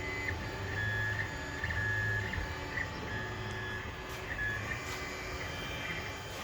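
Creality Ender 5 Pro 3D printer running a print: its stepper motors whine in short tones that jump in pitch as the head moves, with a low hum starting and stopping along with them.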